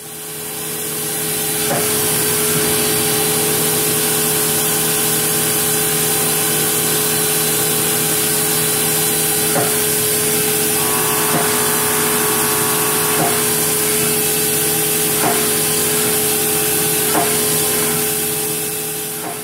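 CNC vertical milling machine profiling a metal part held in a vise: the spindle's steady whine under a loud hiss of mist coolant spraying onto the end mill. Faint short ticks come every couple of seconds as the cutter works around the part.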